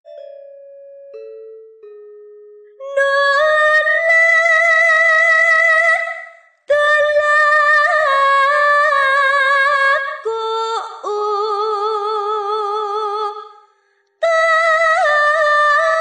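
Javanese classical singing (tembang Sinom): a high female voice sings long, wavering phrases with short pauses between them. A few falling instrument notes come before the voice, which enters about three seconds in.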